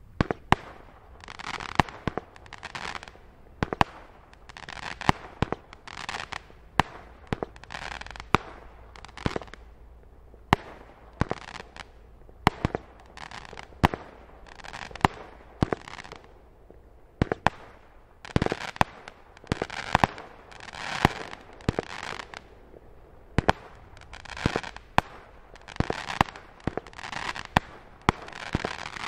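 Nico 'Night Mission' 25-shot, 19 mm fireworks battery firing its shots one after another, a sharp bang about once or twice a second. Many of the bangs are followed by a short burst of noise as the shells break into sparkling stars.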